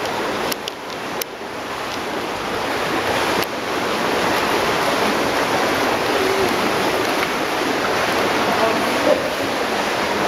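Steady rushing noise of an indoor pool room, like running water, with a few sharp clicks in the first few seconds.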